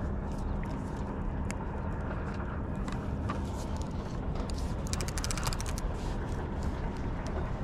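Fishing reel clicking as it is handled and wound, with a quick rattling run of clicks about five seconds in, over a steady low rumble and faint hum.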